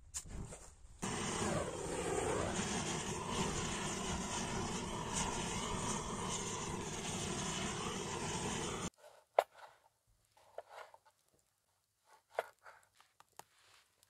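Hose-fed gas torch blasting a flame onto charcoal in a metal grill to light it: a steady jet hiss that starts about a second in and cuts off suddenly near nine seconds. A few light clicks and knocks follow.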